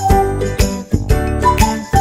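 Background music with a steady beat and bright jingling percussion.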